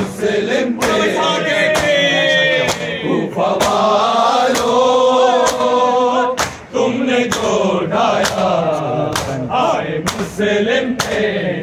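A men's chorus chanting an Urdu noha lament, with hand slaps on bare chests in matam (ritual mourning chest-beating) keeping a steady beat of roughly one and a half slaps a second.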